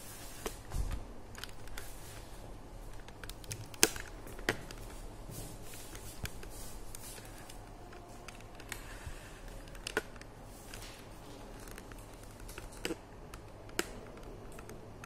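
Camera handling noise: scattered sharp clicks and light knocks over a steady faint hiss.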